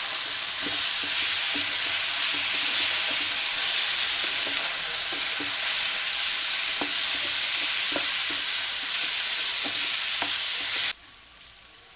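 Beef pieces in a thick spicy masala sizzling in a pan on the stove as they are stirred, a steady frying hiss with a few sharp knocks from the stirring, while the gravy cooks down to dry. The sizzle cuts off suddenly about eleven seconds in.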